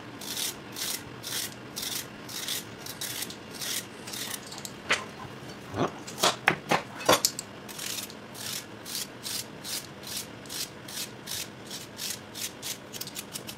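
A knife blade scraping the skin off fresh carrots in quick, even strokes, about two to three a second. A few sharper knocks of the knife against a plastic cutting board come around the middle.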